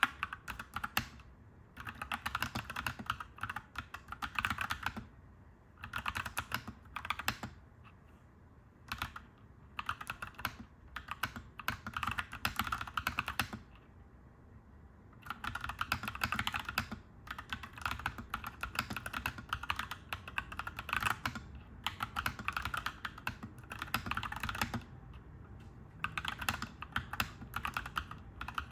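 Clacky mechanical keyboard being typed on in quick runs of keystrokes, a few seconds at a time with brief pauses between.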